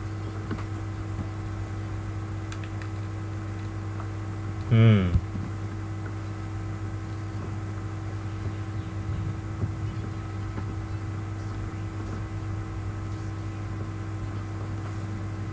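Steady electrical mains hum, a constant low drone. About five seconds in, a short, loud voice sound that drops in pitch cuts across it.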